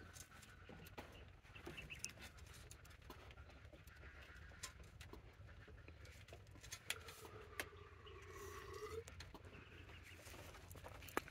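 Quiet farm background with a faint steady hum and scattered small clicks. About two-thirds of the way through comes one faint, drawn-out farm animal call lasting about two seconds.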